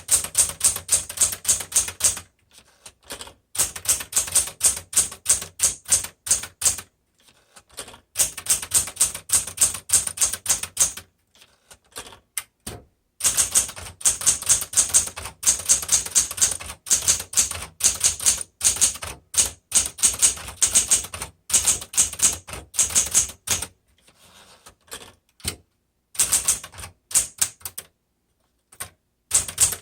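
Smith Corona Galaxie Deluxe 12 manual typewriter being typed on: rapid runs of typebar strikes against the platen, broken by several short pauses.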